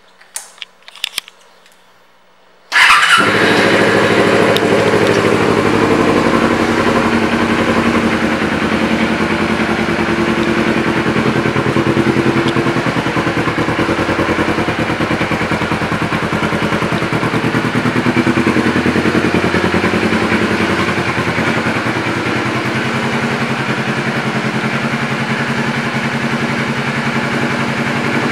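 A few clicks, then a 2012 Kawasaki Ninja 250R's parallel-twin engine starts up suddenly about three seconds in and runs steadily through a Two Brothers Racing aftermarket exhaust.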